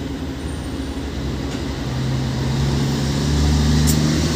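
Vehicle engine heard from inside the passenger cabin, building up as the vehicle moves off. Its low hum grows steadily louder over the last couple of seconds.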